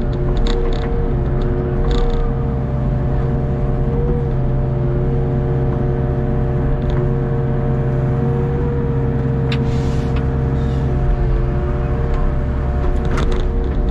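Hitachi ZX48U mini excavator's diesel engine running under load, with a steady hydraulic whine as the boom and bucket dig through wet peat and mud. There are a few short knocks along the way.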